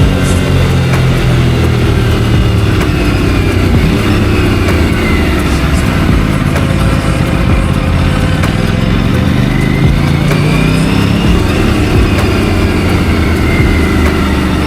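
Aprilia RS 457's parallel-twin engine under way: its note drops off over the first few seconds, climbs again through the gears in the middle, and falls once more near the end.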